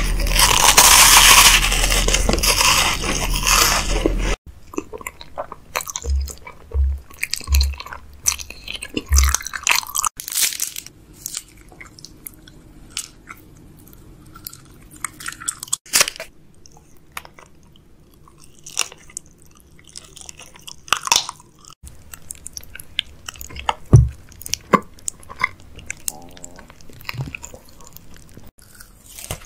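Close-miked ASMR eating: crisp bites and crunching into a chocolate wafer and other snacks, with chewing and wet mouth clicks in between. The loudest stretch is a dense crunching in the first four seconds, which stops abruptly.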